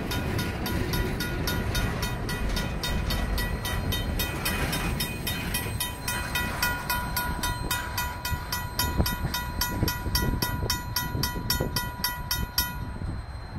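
RACO mechanical crossing bell ringing in even strikes, about four a second, over the low rumble of freight tank cars rolling past on the rails. The bell stops abruptly near the end as the last car clears the crossing.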